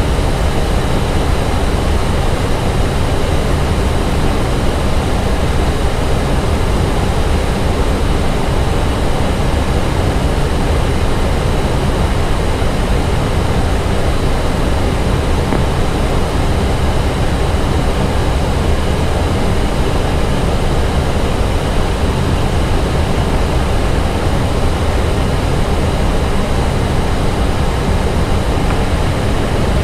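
Steady rushing cabin noise on the flight deck of an Airbus A320 in flight on approach: airflow over the airframe mixed with engine and air-conditioning hum, unchanging in level.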